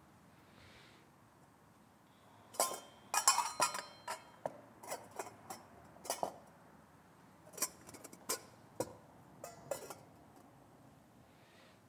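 A chalice and other altar vessels being handled and set down on the altar: a run of irregular sharp clinks and taps that starts about two and a half seconds in and stops near the end. It is the sound of the altar being prepared for the offertory.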